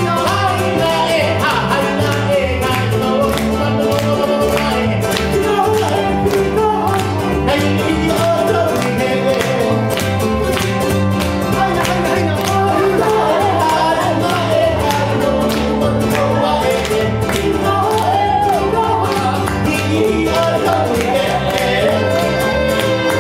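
Live Hawaiian music: a strummed ukulele and a plucked upright double bass with a singer's voice, a steady walking bass line under the melody.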